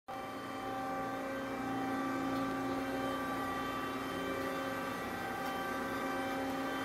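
Amada RG50 hydraulic press brake powered up and idling: a steady hum made of several steady tones, with no stroke or other change.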